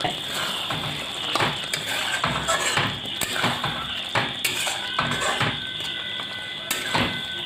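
Metal spatula stirring a thick chicken gravy in a cooking pan, scraping and knocking against the pan many times. Underneath is a steady sizzle from the gravy simmering.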